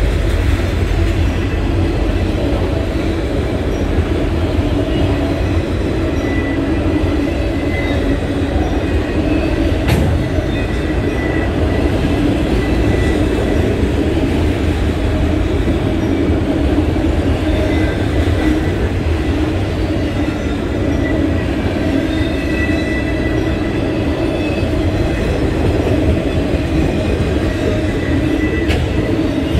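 Autorack freight cars of a CSX train rolling steadily past, their steel wheels rumbling on the rails, with faint high wheel squeals that come and go and an occasional single clank.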